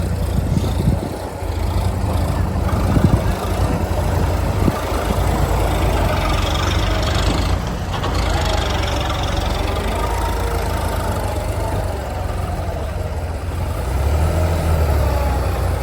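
Heavy diesel machinery running steadily with a deep rumble, with a few sharp knocks in the first few seconds and a wavering higher whine midway through.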